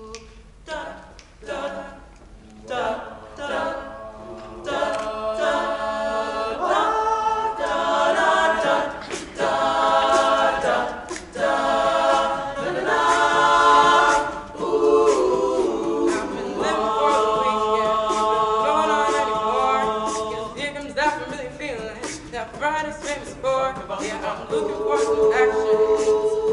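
All-male high-school a cappella group singing in close harmony, voices only. It opens with a few short rhythmic hits, then the full group comes in about three seconds in with sustained chords that swell and hold.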